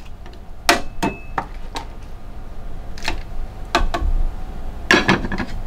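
Metal tongs and a pot lid clinking against a cooking pot as lobsters are put into boiling water. There are about eight sharp clinks, one of them ringing briefly about a second in.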